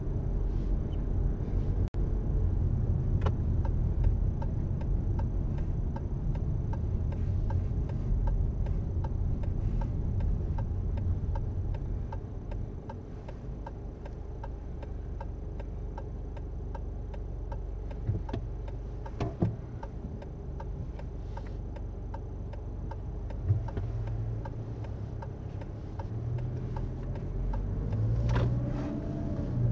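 Car's turn-signal indicator ticking steadily inside the cabin, signalling a left turn, over the low hum of the engine and tyres.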